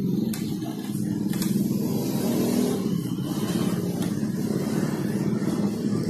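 An engine running steadily, with a few light clicks.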